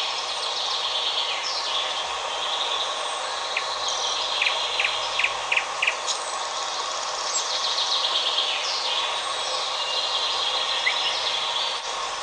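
Several songbirds singing in a forest, overlapping chirps and sliding whistled notes, with a quick run of five short notes about five seconds in, over a steady hiss of background forest noise.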